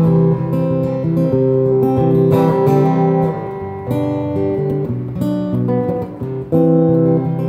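Acoustic guitar played through a Yamaha Stagepas 600i PA system set to its room reverb. Ringing plucked notes and chords, with a short let-up about six seconds in before a new chord.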